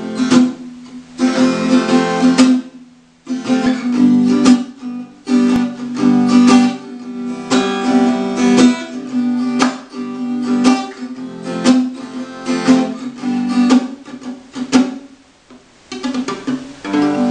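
Acoustic guitar strummed in a rhythmic pattern, its chords repeatedly cut off short by muting, with the palm of the strumming hand and by easing off the fretting hand. This gives sharp percussive stops between strums, with a brief pause about three seconds in.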